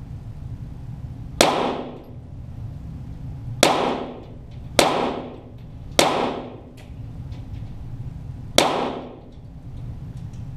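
.22 Walther GSP target pistols firing five single shots at irregular intervals, heard from beside the target, each crack echoing briefly.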